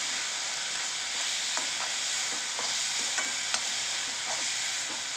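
Onions, tomatoes and ground spices sizzling steadily in oil in a kadai while being stirred with a slotted metal spatula, which clicks and scrapes against the pan a few times.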